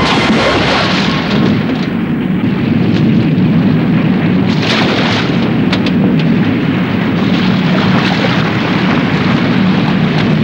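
Film battle sound effects: a continuous low rumble of explosion and fire, with several sharp cracks about halfway through.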